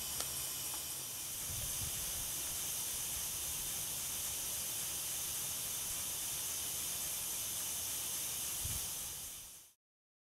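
Model grasshopper beam engine running on compressed air, with a steady hiss of air from the engine and faint low thuds underneath. The sound cuts off abruptly near the end.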